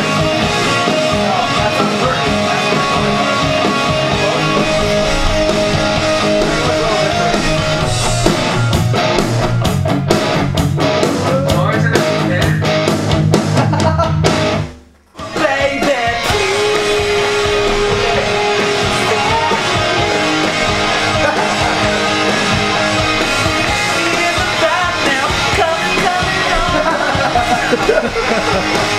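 Rock music with guitars and singing. It stops abruptly for about a second halfway through, then comes back in.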